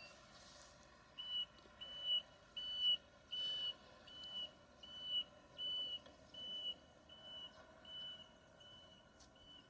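Vehicle warning beeper of the reversing-alarm type, sounding a steady series of short, high, single-pitched beeps about three every two seconds, with a faint steady hum underneath.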